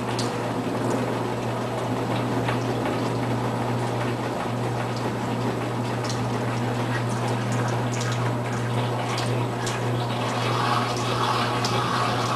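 Brastemp Tira-Manchas 9 kg top-load washing machine running mid-cycle: water sloshing over a steady low hum, with small splashes and ticks.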